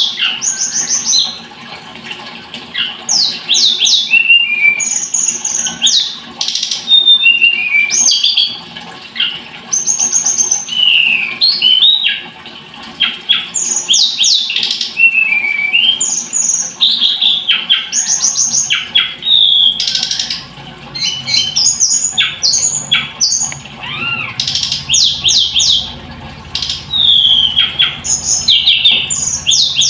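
A tledekan gunung songbird singing a long, varied song of quick chirps, fast trills and short gliding whistles in rapid succession, with brief pauses between phrases.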